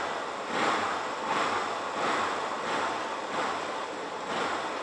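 1976 Honda CB360T's air-cooled parallel-twin engine running just after a cold start, its sound swelling and easing several times a second or so apart as the throttle is blipped. It runs smoothly, showing clean throttle response.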